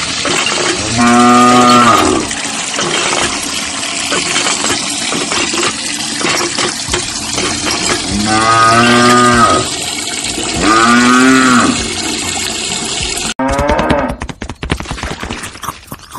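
A cow mooing: three drawn-out moos of about a second each, one near the start and two close together past the middle, then a shorter one near the end. A steady hiss-like background runs under them and drops out suddenly near the end.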